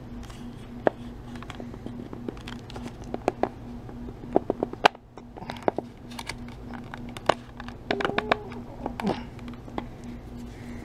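Plastic clicks, snaps and creaks as the case halves of a Fluke 87 III multimeter are pried and pulled apart against their rubber seam gasket, with a brief squeak about eight seconds in. A faint steady low hum runs underneath.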